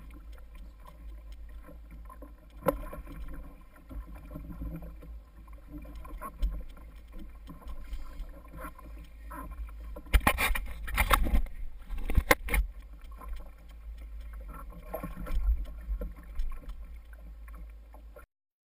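Water sloshing against a kayak hull with wind rumbling on the microphone and scattered knocks. About ten seconds in, a loud two-second burst of splashing and banging as a landed tarpon thrashes against the side of the kayak.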